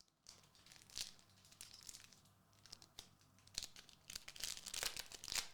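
Foil booster-pack wrapper of the Gundam trading card game being torn open and crinkled by hand, irregular rustling that grows busiest near the end.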